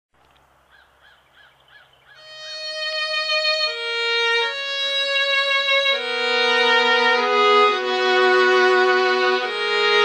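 Slow violin music with long held notes, several sounding together, coming in about two seconds in. Before it, a faint quick series of about six chirps.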